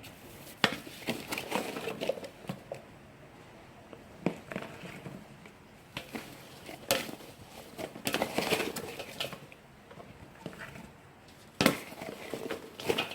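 Plastic bags crinkling and rustling as they are handled, broken by a few sharp knocks and clatters, while sliced loofah is packed into an earthenware crock for enzyme syrup.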